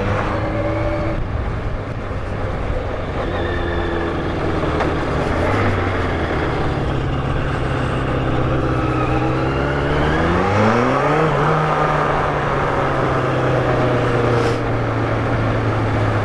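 Yamaha FZR1000's inline-four engine running at low speed under way, its pitch rising about ten seconds in as it accelerates, then holding steady at the higher note.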